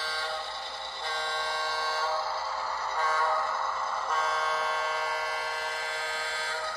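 Sound-decoder horn of an HO-scale Walthers Mainline EMD SW7, played by its ESU LokSound 5 through the model's small speaker while the locomotive runs, sounded in several blasts with the last and longest cutting off near the end.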